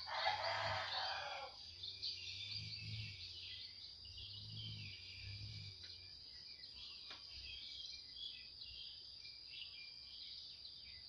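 Small birds chirping over a steady high insect drone in rural surroundings, with a short burst of noise in the first second and a half.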